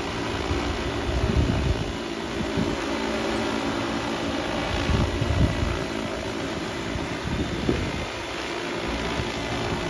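Six-rotor agricultural spray drone hovering and flying, its propellers giving a steady droning hum, with low rumbling gusts of wind on the microphone.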